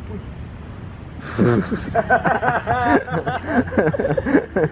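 Young men laughing and talking, starting with a sudden loud burst about a second in, over a low steady background hum.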